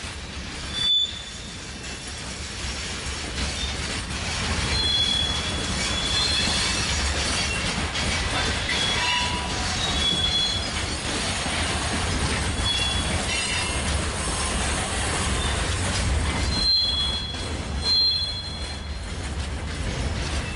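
A freight train hauled by an ST44 (M62-type) two-stroke V12 diesel locomotive creeps past during shunting, its engine giving a steady low rumble. Wheel flanges squeal in short high bursts several times, loudest about a second in and twice near the end.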